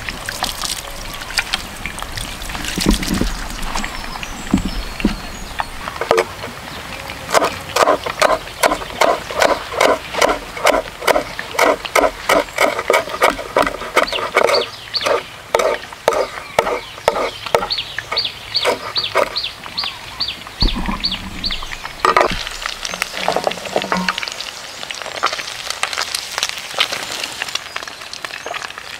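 Cleaver chopping fresh coriander on a wooden cutting board: a steady run of about three to four chops a second, lasting some fifteen seconds. At the start there is a little handling and water splashing as the herbs are rinsed from a plastic bottle, and near the end a wood fire burns in a clay stove.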